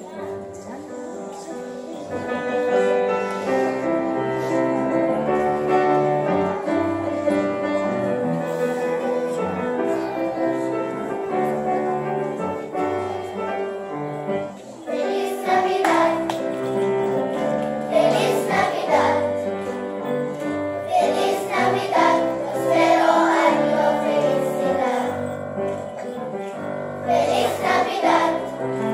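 Children's choir singing a song with instrumental accompaniment; the voices grow fuller and louder about halfway through.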